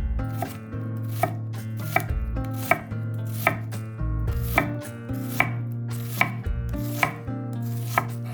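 Kitchen knife chopping on a cutting board with evenly paced strokes, about one every three-quarters of a second.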